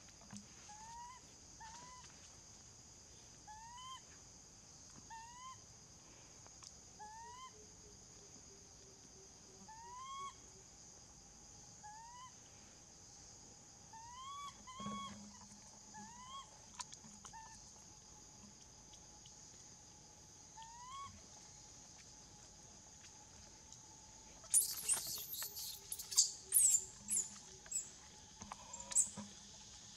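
Baby long-tailed macaque giving repeated short, rising squeaky calls, singly or in pairs. Near the end these turn into a run of loud, shrill, high-pitched screams while the adult holds the baby by its tail.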